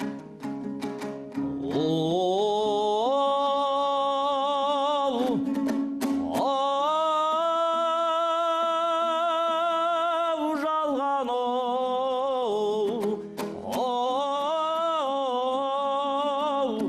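Kazakh folk song: a singer holds three long, drawn-out notes with vibrato over plucked string accompaniment. Quick plucked strokes come in the first second or so.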